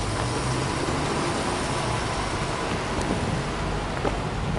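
Subaru Impreza WRX STi's turbocharged flat-four boxer engine idling steadily, an even low hum with no revving.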